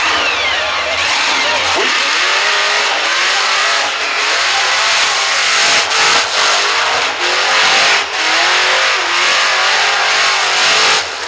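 Supercharged, fuel-injected LS V8 in a Holden VX Commodore revving hard through a burnout, over a loud haze of tyre noise. The revs waver and the engine drops out briefly a few times, running rough, which the commentator puts down to a tune that isn't right.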